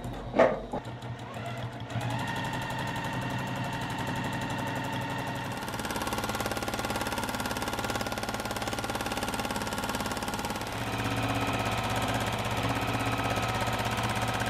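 Juki sewing machine running steadily at speed, the needle stitching in a rapid even rhythm during free-motion quilting. Before it, about two seconds of quieter clicks with a short loud knock half a second in; the running pitch and level shift slightly near the middle and again later.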